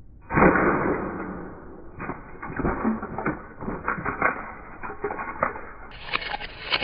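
Plastic LEGO Technic parts clattering on pebbly concrete: a loud clatter about half a second in, then many irregular knocks and rattles as the model's wheels and loose pieces, including the brick logs, hit and skitter over the stones.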